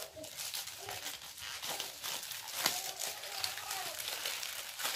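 Plastic packaging crinkling and rustling as the plastic wrap on a new skateboard and the black plastic bag around it are handled and pulled at, with one sharper crackle a little past halfway.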